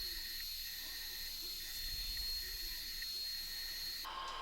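Steady background hiss with faint, steady high whines, with no speech over it. About four seconds in, the hiss cuts to a different, steadier background noise.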